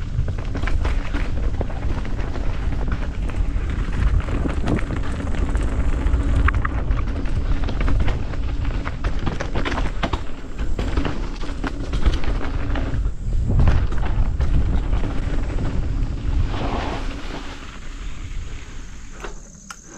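A vehicle running over a rough trail: a steady low rumble with many small knocks and rattles, fading near the end.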